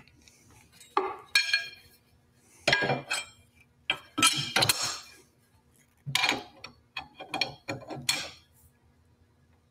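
Steel arbor wrenches clinking and clanking against the table saw's arbor nut and stacked dado head as the nut is tightened: a series of separate metallic knocks, some ringing briefly.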